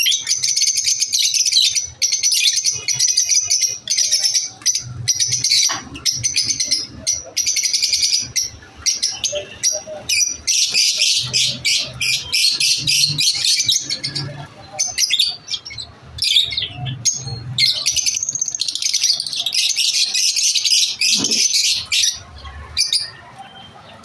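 Lovebirds chattering in a dense, rapid run of high-pitched chirps. The chatter thins out about two-thirds of the way in and again near the end.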